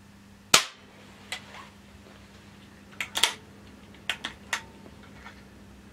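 An air rifle fires a single shot about half a second in, a sharp crack and the loudest sound here. Several smaller sharp clicks follow over the next few seconds as the rifle is handled and readied for the next shot.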